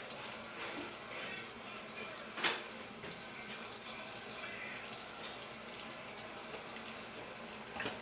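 Bacon sizzling in hot grease: a steady hiss with small crackling pops, one sharper pop about two and a half seconds in.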